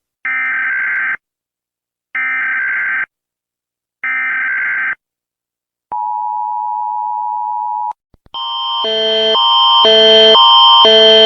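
Emergency Alert System SAME header: three roughly one-second bursts of warbling data tones, a second apart. Then a steady attention tone sounds for about two seconds. About eight seconds in, a loud alert starts, two chords alternating about twice a second.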